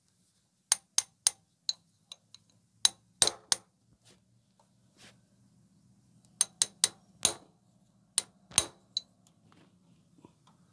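Hammer blows on a steel hand impact driver, knocking loose the stator plate screws on a Hero Honda Splendor's magneto side. About fourteen sharp, ringing metallic clinks come in groups of three or four, with pauses between the groups.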